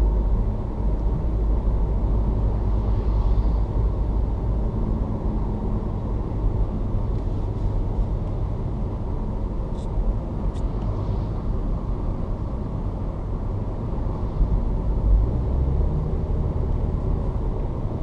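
Steady road noise inside a moving car: a continuous low rumble of tyres and engine.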